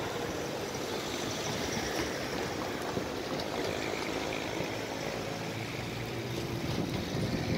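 Diesel locomotive engine running steadily, a constant rumble with a noisy hiss over it.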